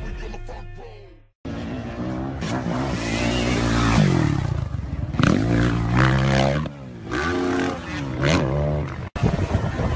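Dirt bike engine revving hard, its pitch climbing and then dropping several times as the throttle opens and the gears shift. Music fades out in the first second, before the engine comes in.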